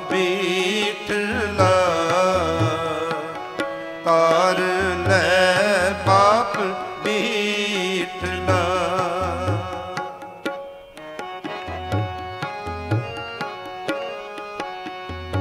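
Sikh kirtan music without words: tabla keeps a steady rhythm under held melodic tones. For the first eight seconds or so an ornamented melodic line with wavering pitch runs over them, then tabla and held tones carry on alone.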